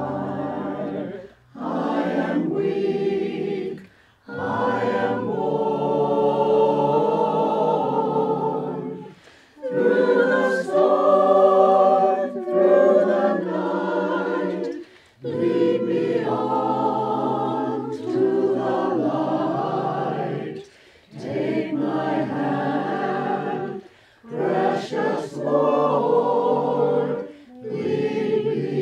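Mixed-voice a cappella choir singing a hymn in four-part harmony, in phrases a few seconds long with short breaks between them.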